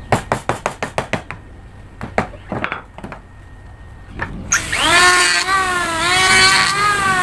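Hammer tapping a wood chisel into a wooden handsaw handle: a quick run of light strikes in the first second or so and a few more around two seconds in. About four and a half seconds in, an electric hand planer starts, rising quickly in pitch, and runs on with a loud, wavering whine.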